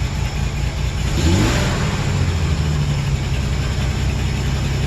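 2008 Chevrolet Express van's misfiring engine revved with the throttle: the engine note climbs about a second in, climbs again a little later and holds at the higher speed.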